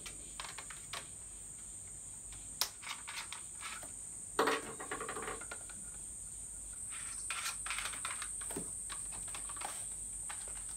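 Plastic clicks and rattles from handling a toy gel-ball blaster shotgun while gel balls are poured into its top-mounted hopper, with a louder rattle about four and a half seconds in. A steady high-pitched whine runs underneath.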